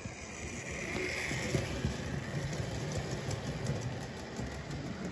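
A 00 gauge model goods train running past on the track: a steady rumble of small wheels on rail with a run of light clicks over the rail joints and pointwork. It gets louder after about a second as the train comes close.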